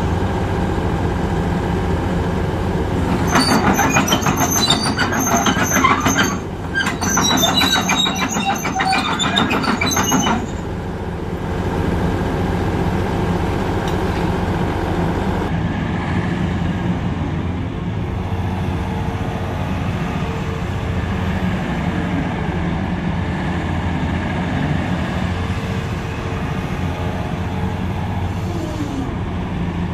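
Volvo EC380DL excavator's diesel engine running steadily, with a loud spell of steel track clanking and squealing a few seconds in that lasts about seven seconds, with a short break midway, as the tracks move.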